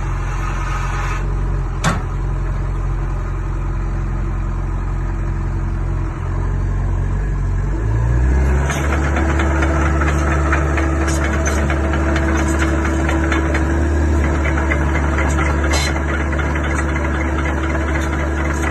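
Sany SY75C mini excavator's diesel engine running steadily, then picking up to a higher speed about eight seconds in, with a light clatter over the engine sound once it is running faster. A single sharp click comes about two seconds in.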